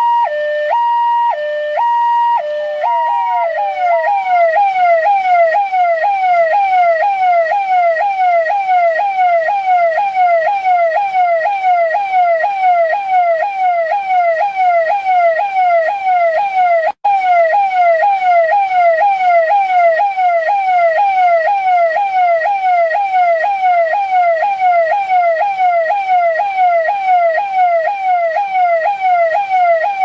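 Delhi Police electronic siren, loud: for the first few seconds a two-tone hi-lo alternating between two steady pitches, then it switches to a fast yelp of quick falling sweeps repeating over and over. It cuts out for an instant about two-thirds of the way in and stops abruptly at the end.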